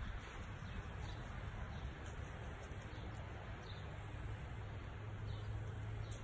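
Faint, steady outdoor background noise with a low hum underneath and no distinct sound standing out.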